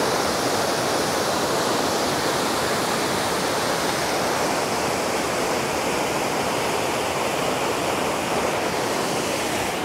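Waterfall rushing steadily: the continuous noise of water falling over rocks.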